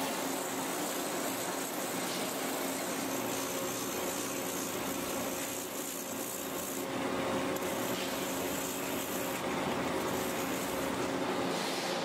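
Rotary power buffer grinding the rubber of a giant earthmover tire, a steady rasping abrasion as the damaged area is buffed and taper-skived for a repair. The sound dips briefly about halfway through.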